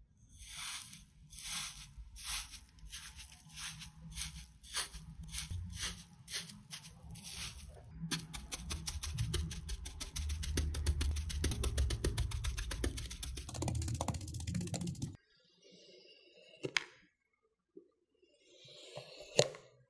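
A wooden pestle pressing and crushing kinetic sand mixed with instant snow: crunchy presses that come faster and faster, turning into rapid mashing about eight seconds in. It stops suddenly, followed by a few soft scrapes of a loop tool carving kinetic sand.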